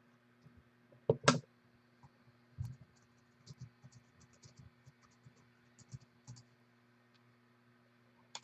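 Scattered clicks and taps of typing on a computer keyboard, with one louder sharp double clack about a second in, over a faint steady hum.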